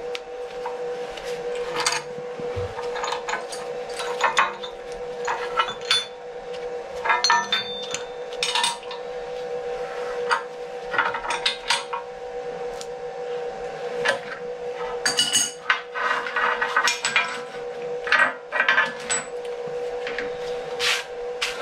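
Steel adjustable spanner clinking and knocking against the clamp nuts, clamps and steel plate on a milling machine table as the workpiece clamps are undone and reset, in many irregular sharp clinks. A steady hum runs underneath.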